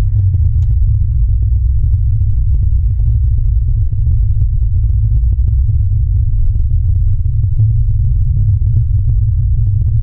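Steady, loud low rumble of a car's engine and road noise heard from inside the cabin as it drives, with faint light ticks above it.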